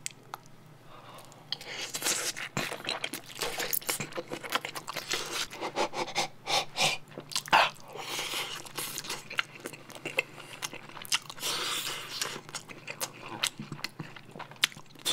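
A person chewing a mouthful of dumpling and rice close to the microphone: a bite, then many irregular wet mouth clicks and smacks.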